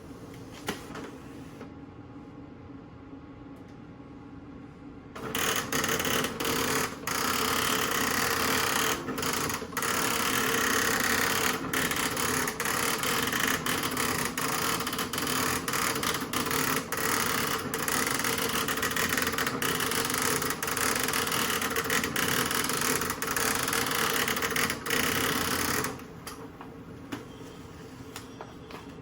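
Apple daisy wheel printer, built by Qume, printing: a fast, continuous rattle of hammer strikes on the daisy wheel typing element, broken by many brief pauses. It starts about five seconds in and stops a few seconds before the end, with a low hum and a few clicks from the idle machine on either side.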